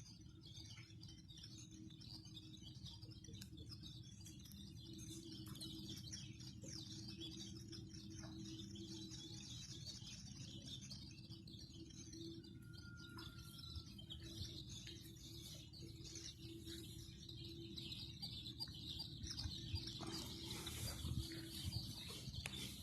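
Birds chirping and singing, many quick overlapping calls, over a steady low hum.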